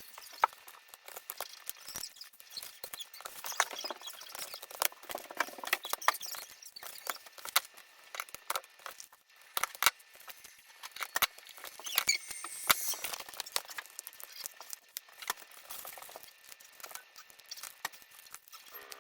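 Small paper notes being handled and stuck onto an advent calendar: scattered clicks, taps and paper rustles, with a denser stretch of rustling about two-thirds of the way through.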